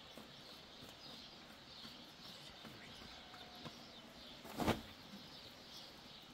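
Faint bird chirps in the background, with a few light taps; about two-thirds of the way through, one short soft thud as a round of flatbread dough lands on a bed of hot embers and ash.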